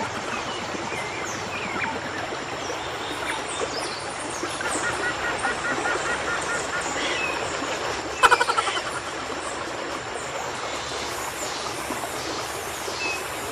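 Tropical forest ambience: a steady hiss of insects with birds chirping and trilling throughout, and one short, loud call about eight seconds in.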